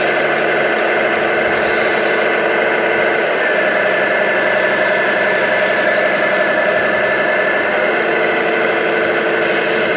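Steady diesel-engine running sound from a radio-controlled scale model Scania 113 truck's sound module, holding a constant note with light knocking.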